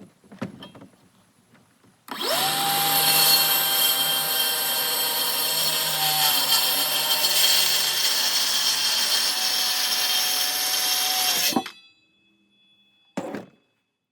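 Electric power saw cutting 3/4-inch plywood: the motor spins up sharply about two seconds in and runs with a steady whine through a cut of about nine seconds, then winds down. A short knock follows about a second and a half later.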